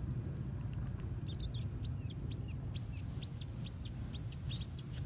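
Baby field mouse squeaking: a run of about ten short, very high-pitched squeaks, each rising and falling, about two a second, starting about a second in. These are the pup's distress calls.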